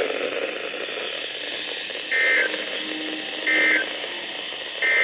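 Three short bursts of Emergency Alert System digital data tones, about 1.3 seconds apart, over a hissy, static-filled radio signal: the pattern of the SAME end-of-message code that closes an alert.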